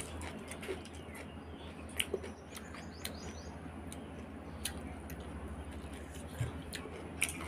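Wet mouth clicks and lip smacks from eating with the fingers and licking them, over a low steady hum. A few faint bird chirps come in about two and a half seconds in.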